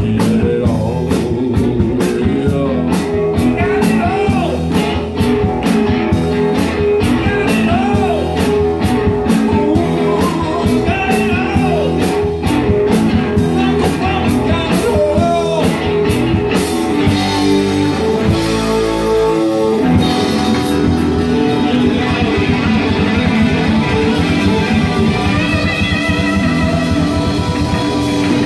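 Live rock band playing: electric guitars, electric bass and a drum kit, with a man singing through the first half. About two-thirds of the way through, the drums drop out for a few seconds under held chords and a deep bass note, then the full band comes back in.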